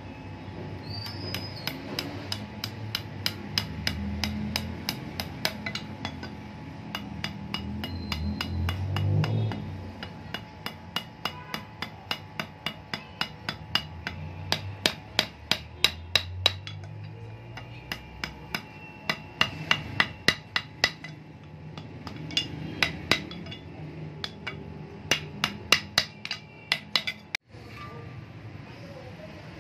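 Small hammer tapping on a knife's wooden handle scales and pins against a steel anvil block, in runs of sharp, ringing metallic taps about two to three a second.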